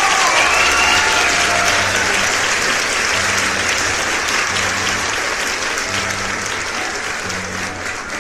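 Applause, gradually fading, over background music with a regular low beat.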